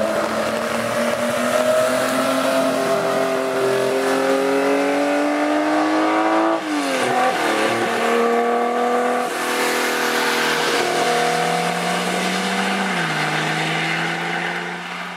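Porsche 904 GTS race car engine pulling hard under acceleration. Its pitch climbs steadily for about six seconds, drops sharply at an upshift, then runs steadier with another small drop near the end, over the hiss of spray from the tyres on the wet track.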